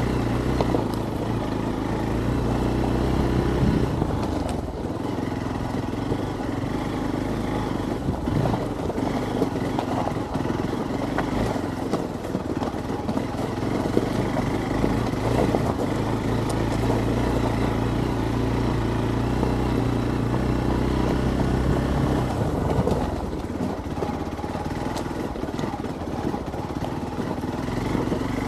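Hero Xpulse 200 single-cylinder motorcycle engine running under way on rough off-road ground. The engine note holds steady for stretches and breaks up and shifts between them. Frequent knocks and clatter come from the rocky track.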